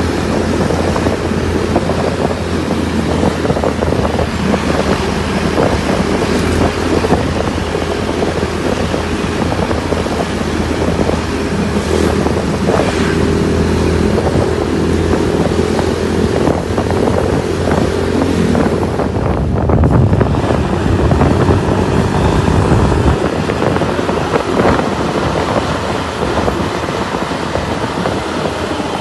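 Motor vehicle engine and road noise while travelling in traffic, a steady hum with wind buffeting the microphone, swelling louder about two-thirds of the way through.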